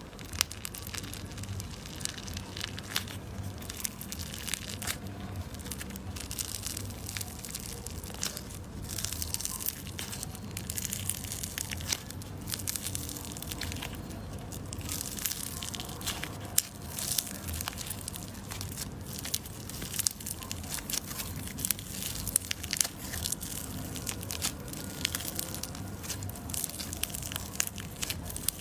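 Slime being squeezed, pressed and pulled by hand, giving a continuous run of irregular crackling and popping clicks.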